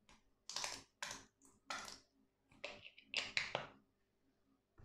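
Plastic squeeze bottle of mustard, held upside down with its cap off, squirting in about six short bursts as it is squeezed over the bowl.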